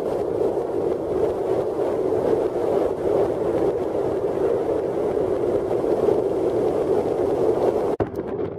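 Steady rushing road and wind noise of a car driving at highway speed, heard from inside the car. It breaks off abruptly near the end.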